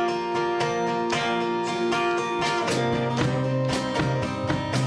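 Instrumental song opening: strummed acoustic guitar with held notes, a deeper note joining about three seconds in; no singing yet.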